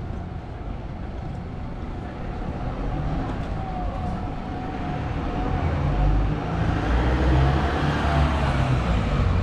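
Street traffic: a car drives past, its engine and tyre noise growing louder in the second half.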